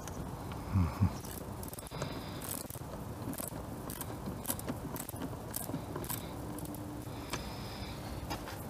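Screwdriver work on the air filter housing fasteners: a string of sharp, irregular metal clicks and light rattling from the tool and its bit. Two dull knocks come about a second in.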